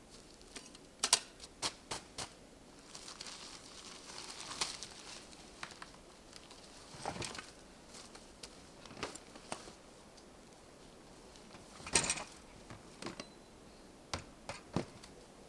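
Scattered sharp clicks and knocks with some rustling, as of things being handled in a small room; the loudest knocks come about a second in and near the two-thirds mark.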